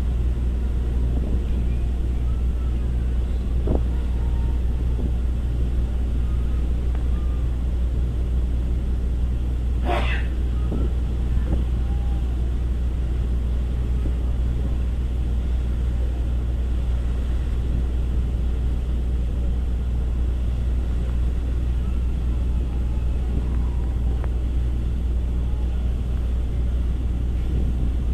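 Steady low drone of ship engines. A brief sharp noise comes about ten seconds in.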